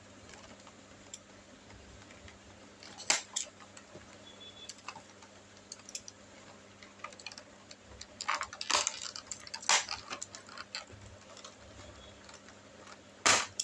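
Action figure packaging being opened and handled: scattered sharp clicks and crackles of cardboard and plastic, in small clusters about three seconds in, between eight and ten seconds, and near the end.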